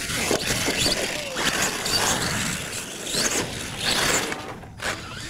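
Radio-controlled monster truck's motor whining in short bursts that rise and fall in pitch as the throttle is worked, with tyres scrabbling on loose dirt. The sound briefly drops out near the end.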